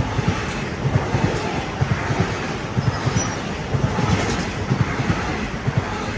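A train passing at close range: a steady rumble of railcar wheels on the rails with frequent low thumps.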